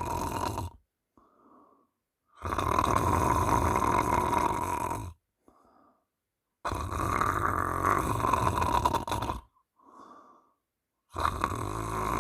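A sleeping person snoring loudly and rhythmically: long rasping snores about every four seconds, each lasting about two and a half seconds, with faint breaths in the quiet gaps between them.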